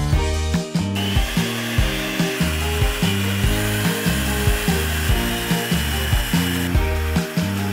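Electric hand mixer running, its beaters whipping egg whites to a foam in a glass bowl. The whir starts about a second in and stops near the end, over background music.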